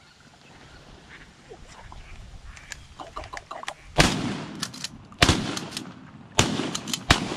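Shotgun blasts at ducks: four loud shots over about three seconds, the first about four seconds in, with a spent shell cycled out of the action after the first. Ducks quack just before the shooting.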